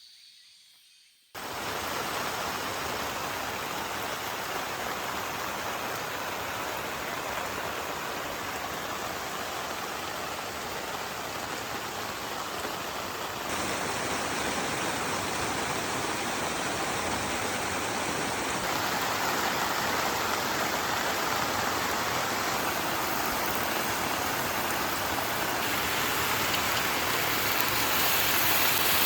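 Heavy rain falling steadily, an even rushing hiss that starts suddenly just after the opening and shifts abruptly in tone a few times.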